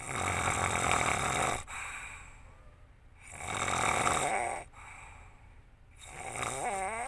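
A woman snoring heavily in her sleep: three long snores about three seconds apart, each on an in-breath. The last one has a wavering, throaty pitch.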